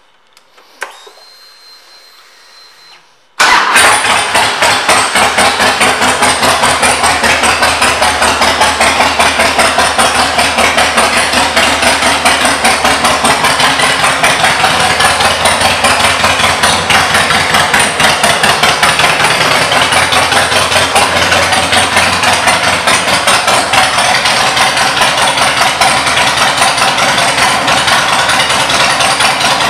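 A 2002 Harley-Davidson Fat Boy's Twin Cam 88B V-twin, fitted with Vance & Hines pipes, starts suddenly about three seconds in. It then runs at a loud, steady idle with a quick pulsing beat.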